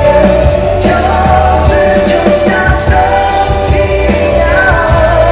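Male singer performing a rock ballad live into a handheld microphone over a band with drums, amplified through a stadium sound system, holding long notes that waver near the end.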